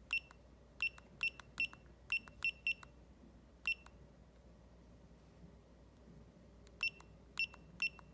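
Short electronic key-press beeps from a restaurant pager watch receiver as its buttons are pressed to enter a name letter by letter: a quick series of single high beeps, a pause of about three seconds, then three more near the end.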